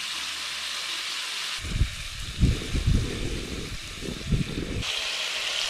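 Australian bass fillets sizzling in oil in a frying pan on a portable gas cooker, a steady hiss. For about three seconds in the middle, gusts of wind buffet the microphone with a low rumble.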